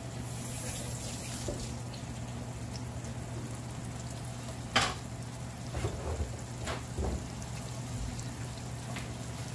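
Sole fillets frying in hot olive oil in a nonstick pan: a soft steady sizzle with a few sharp pops of spitting oil, the loudest about five seconds in. A low steady hum runs underneath.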